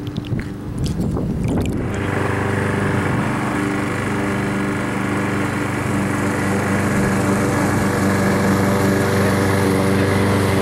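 Small gasoline lawn mower engine running at a steady pitch, growing louder about two seconds in.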